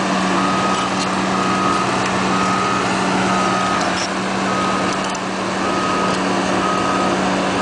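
Excavator's diesel engine running steadily, with a high warning beeper sounding in short beeps about once a second.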